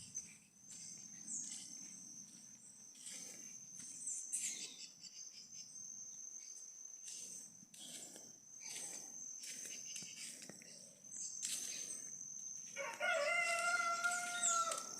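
Morning bird chorus: many short, high bird chirps and calls over a steady high-pitched insect drone. Near the end a rooster crows for about two seconds, the loudest sound here.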